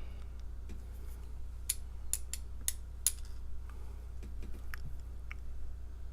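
Light, sharp clicks and ticks of small metal lock parts being handled as the pin stacks and springs of a disassembled padlock are taken out, with a quick run of clicks about two to three seconds in.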